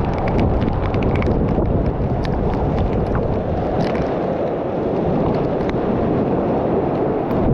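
Waterfall pouring down close to the microphone: a loud, steady rush of falling water and spray.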